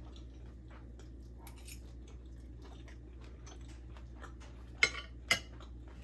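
A person chewing food with small crisp crackles, and two sharper crunches or clicks about five seconds in.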